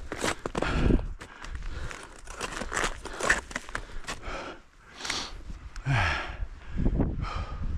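Snowshoes crunching and scraping on hard, uneven snow step by step, with the hiker breathing hard and letting out a short voiced exhale about six seconds in.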